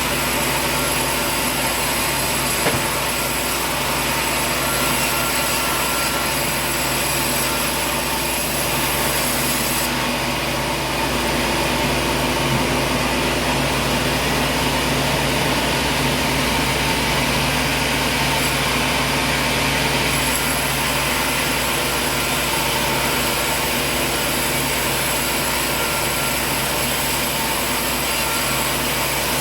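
Machinery running steadily: a continuous drone with several constant whining tones.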